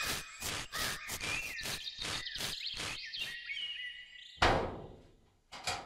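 Animated-dinosaur sound effects: chirping, squawking creature calls over a quick run of sharp taps, about four a second. Then a single loud crash about four and a half seconds in, fading out, and two short knocks near the end.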